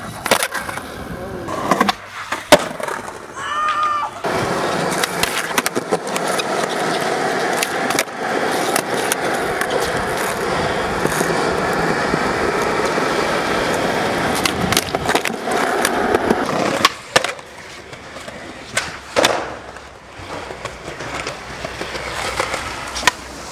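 Skateboard wheels rolling over concrete, with sharp clacks of the board popping and landing during tricks. There is a long unbroken roll in the middle, and scattered clacks before and after it.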